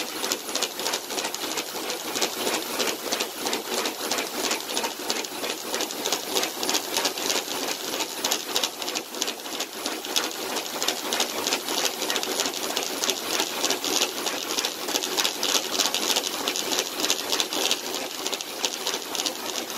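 A dog running on a dog treadmill: a fast, steady clatter of paws and claws on the moving belt, mixed with the machine's rattle.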